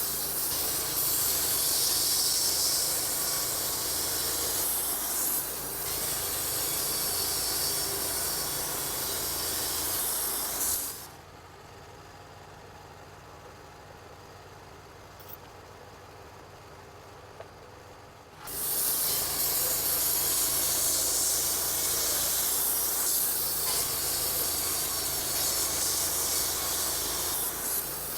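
Wood-Mizer LT-35 portable band sawmill running and sawing through a log, a steady hissing noise. About eleven seconds in it drops abruptly to a much quieter background for some seven seconds, then the sawing noise comes back just as suddenly.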